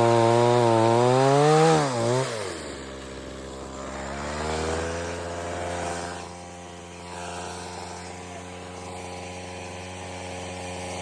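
Chainsaw engine at high revs, its pitch wavering under load for about two seconds, then dropping back to run steadily at a lower speed.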